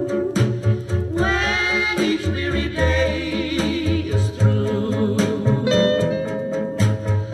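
A song with a singing voice, guitar, bass and light percussion, played back through a hi-fi amplifier for a listening comparison.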